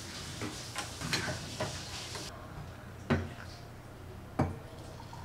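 A metal utensil clinking and knocking against a steel saucepan of ginger water on the stove: a few light clicks, then two louder knocks about three and four and a half seconds in.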